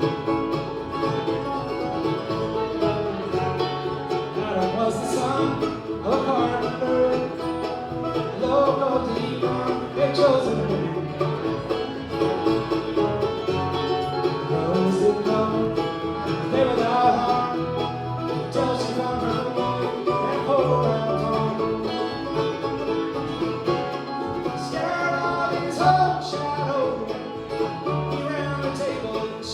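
Bluegrass band playing live, with banjo and guitar picking over a steady bass line.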